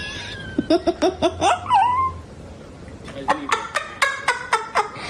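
A person laughing: two runs of short, rapid, high-pitched bursts, the second starting about three seconds in.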